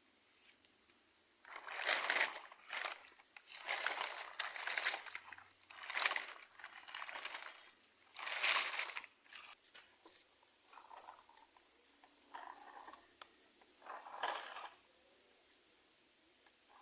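Loose sand and small stones being scooped and poured in short rustling, crunching pours, about seven of them. The loudest come in the first half and the later ones are fainter.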